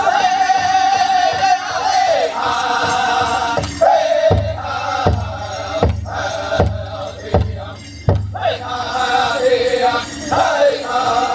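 Powwow drum group singing a Chicken dance song in high-pitched chant over a big drum. About four seconds in the singing drops away for about six heavy drum strikes, evenly spaced, and then the singing comes back in.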